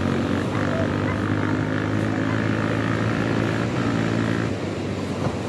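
A motor engine running with a steady drone, easing off about four and a half seconds in.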